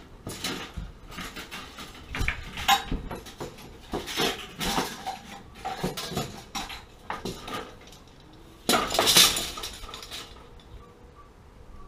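Irregular metallic clinking, knocking and scraping as tools and pipe fittings are handled inside a water heater closet, with a louder rattling scrape about nine seconds in.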